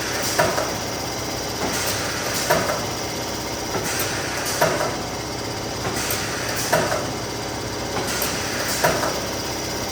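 Neoram 540 hot laminator running steadily through a batch of sheets, with a short knock repeating about every two seconds, five times over.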